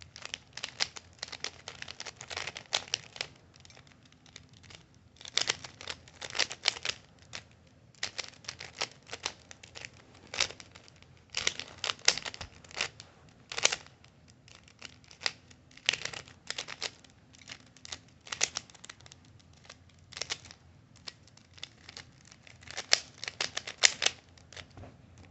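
A new, stiff plastic Rubik's-type cube being turned by hand in quick bursts of clicking, clacking layer turns with short pauses between them.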